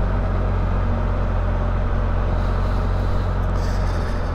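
Can-Am Spyder RT Sea-to-Sky three-wheeler running steadily while being ridden, its engine hum under a steady wash of wind and road noise.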